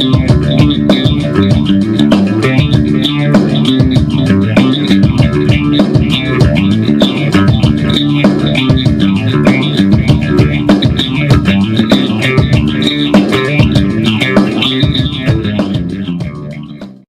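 Background music with bass and guitar and a steady beat, fading out near the end.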